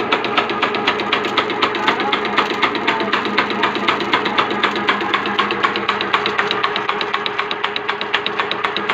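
Sewing machine running steadily, a rapid even clicking of about seven strokes a second over a steady hum.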